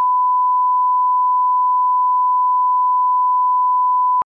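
Line-up reference tone played with television colour bars: one steady, unwavering beep at a single pitch that cuts off suddenly near the end.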